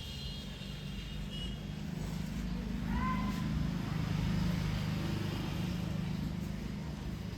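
Low engine rumble that swells from about two seconds in and eases off near the end, with a brief high call about three seconds in.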